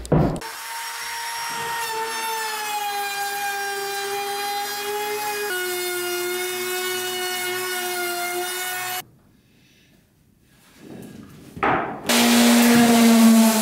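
Electric hand sander working the timber-frame posts, running with a steady whine that cuts off about nine seconds in. Near the end it spins up again with a rising whine and settles to a louder steady run.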